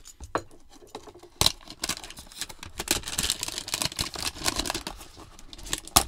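Cardboard hanger box of trading cards being torn open by hand: a sharp crack about a second and a half in, then a run of crackling, tearing and rustling.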